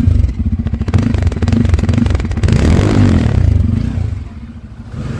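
Bajaj Pulsar N250's 250cc single-cylinder engine running through its twin-outlet exhaust, just started to demonstrate its sound. The revs rise briefly about two and a half seconds in and fall back near the end.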